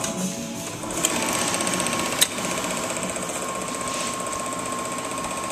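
Chinon Dual 8 8mm film projector running, its film-transport mechanism giving a fast, even ticking whir. A click comes about a second in and a sharper one about two seconds in.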